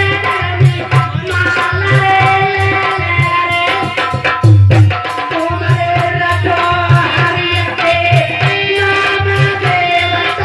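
Live devotional folk song (jas): a harmonium playing held melodic notes over a steady hand-drum beat, with a woman singing.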